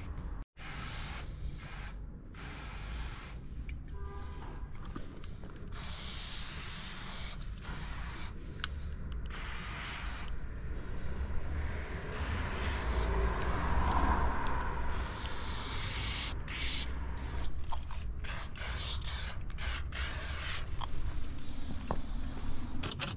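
Aerosol spray-paint can spraying in a series of hissing bursts, some short and some a couple of seconds long, with brief pauses between strokes.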